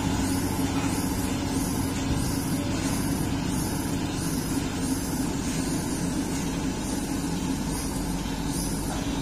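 Heavy construction machine's diesel engine running steadily, with a faint high chirp repeating about twice a second over it.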